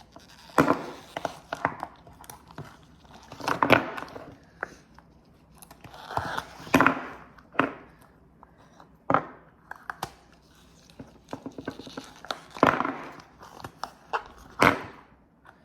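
Ice cubes being cracked and popped out of their trays and dropped into a container: repeated short bursts of crackling, clicking and clinking, about ten times.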